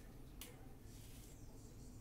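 Near silence: low room hum, with a faint click about half a second in from the small plastic bags of diamond-painting drills being handled.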